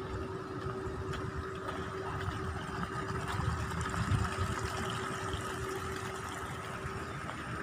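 Open-air countryside ambience: a steady mechanical hum that stops near the end, over a low, uneven rumble.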